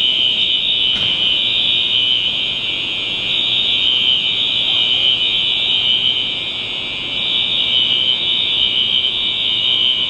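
Building fire alarm sounding a steady, shrill, unbroken tone.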